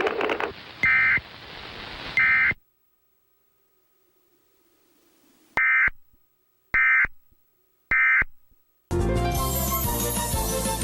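Emergency Alert System digital data-tone bursts: short, shrill electronic chirps. Two come over a static hiss; then, after a pause, three more about a second apart, the end-of-message code that closes the alert. Music starts suddenly near the end.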